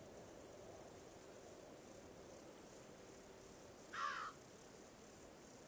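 Steady high-pitched insect drone of bush ambience, with one short call about four seconds in.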